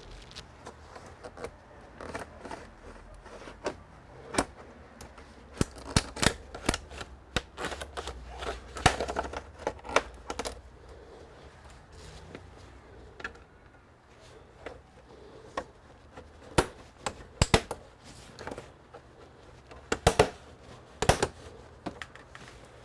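Irregular sharp clicks and snaps of plastic being worked with a pry tool and hands on a computer's casing, bunched in two busier stretches.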